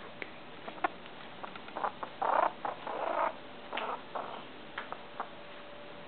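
Baby squirrels handled against a sweatshirt: a run of short clicks, squeaks and scratchy rustles, busiest about two to three seconds in.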